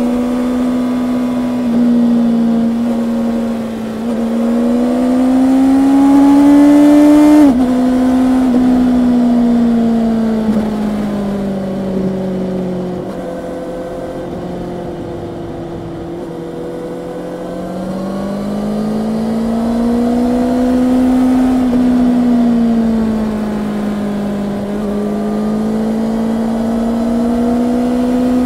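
Honda CB650R's inline-four engine running under way. The revs climb to a sudden drop about seven seconds in, as at an upshift, then sink slowly as the bike eases off, and rise and fall twice more as it accelerates and slows again.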